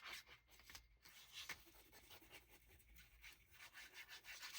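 Faint scratching and rubbing on paper, with a few light ticks, as a paper strip is glued down by hand.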